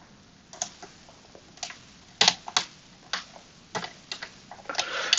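Hook pick and tension wrench working the sliders of a Kwikset SmartKey Gen 2 lock: light, irregular metallic clicks about every half second. Near the end the clicks come quicker, just before the lock is picked open.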